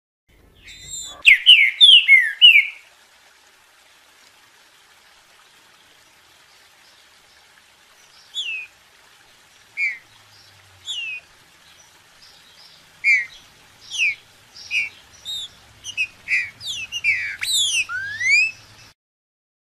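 Green-winged saltator (trinca-ferro) singing: a quick phrase of loud falling whistles about a second in, then after a pause, spaced single whistled notes that build into a faster run of falling and rising whistles near the end. A faint steady hiss lies under the song.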